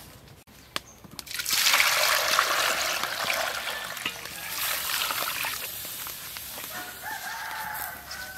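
Water pouring and splashing into a large aluminium pot over a tied pork belly roll. It starts about a second in, is loudest at first, and tapers off after a few seconds.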